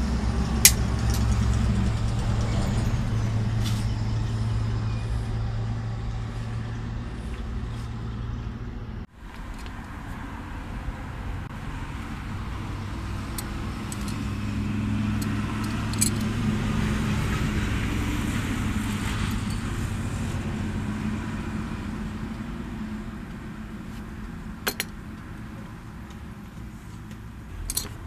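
Steady low hum of a motor vehicle's engine running nearby, with a few light metallic clicks of hand tools; the hum breaks off at a cut about nine seconds in and comes back.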